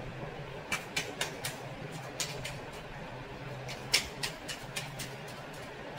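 Light, irregular clicks and taps over a low steady hum, the loudest tap about four seconds in.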